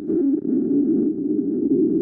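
A woman's stomach growling: a continuous low rumble that wavers in pitch.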